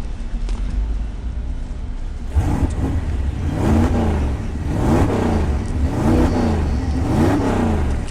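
Engine running with a steady low rumble, then revved about five times in a row from a couple of seconds in, each rev rising and falling in pitch.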